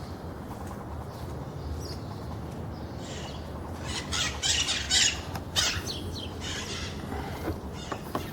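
The four-cylinder 1.0 AT engine of a 1999 VW Gol idling with a steady low hum, the engine whose strange noise the owner asks might be a tapping lifter. Birds chirp loudly over it in quick bursts, mostly between about three and seven seconds in.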